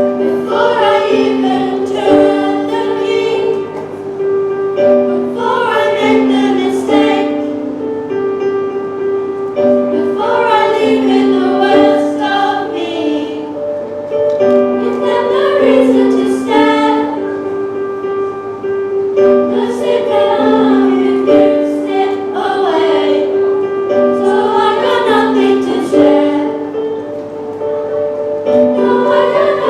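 School choir of young voices singing a song over held instrumental chords.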